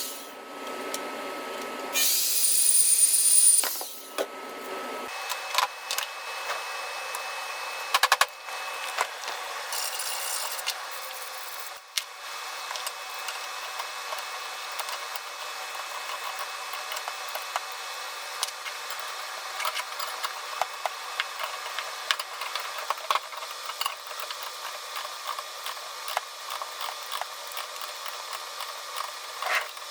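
Hand work on a steel pipe in a vise: a loud hissing burst about two seconds in, then a long run of small metallic clicks, knocks and scrapes.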